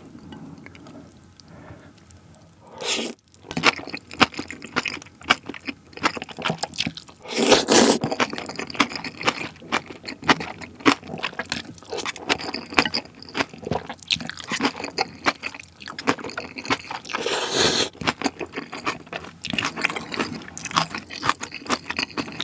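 Close-miked eating of instant noodles: three loud slurps, about three, eight and seventeen seconds in, with wet chewing and many small mouth clicks in between.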